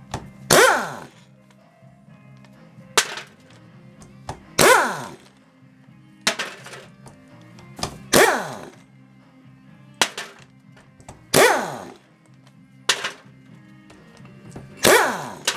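Hammer striking a long steel punch held against the aluminium case of a manual transmission during teardown, about nine spaced blows that alternate louder and softer, each ringing briefly. Steady background music runs underneath.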